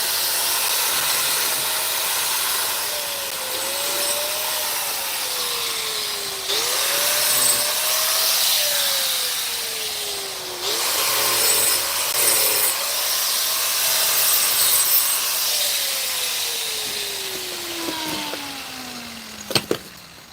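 Electric power tool working wood during a porch repair. Its motor pitch sags slowly several times and jumps back up between them. Near the end it winds down steadily, a sharp click sounds, and it stops.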